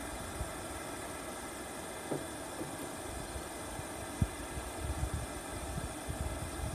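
Steady hum of the forge's small electric air blower. About four seconds in, a single metal knock as the tongs meet the tin quench can, then a run of uneven low bubbling as the hot blade is quenched to harden it.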